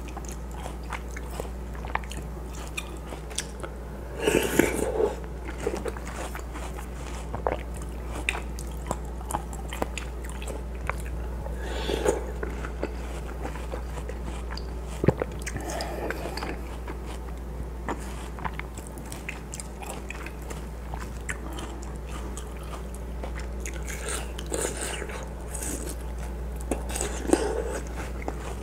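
Close-miked chewing of watermelon chunks from watermelon punch (hwachae): crisp, wet crunches and mouth sounds, with a handful of louder bursts spread through. A low steady hum lies underneath.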